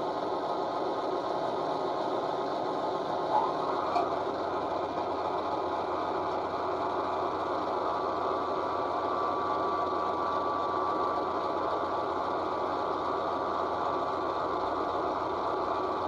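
Sound-decoder recording of a British Rail Class 58 diesel locomotive's engine idling, played through a model locomotive's small speakers, with two brief sharp clicks about three to four seconds in.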